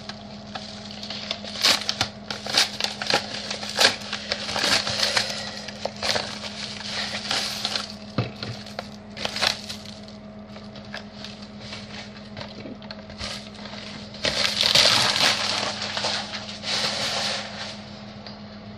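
Plastic packaging crinkling and crackling as it is handled and unwrapped, with scattered clicks and a louder rustling stretch about fourteen seconds in.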